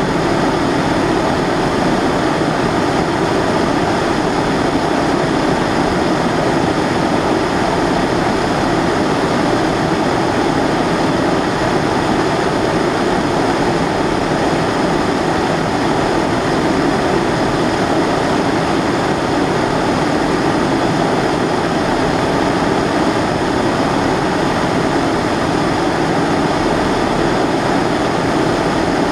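Kerosene pressure stove (Primus-type burner) burning steadily: a continuous, even rushing roar of the flame that holds one level throughout.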